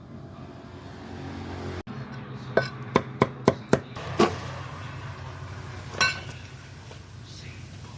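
Kitchenware knocking and clinking: a run of five quick, sharp knocks about two and a half seconds in, then single knocks a little later, over a steady low hum.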